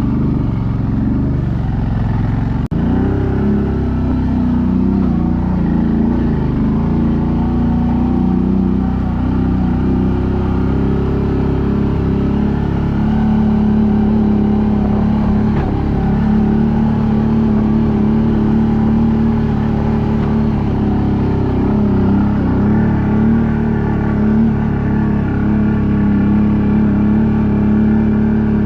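ATV engine running under load on a climb, its pitch wavering with the throttle at first, then holding fairly steady.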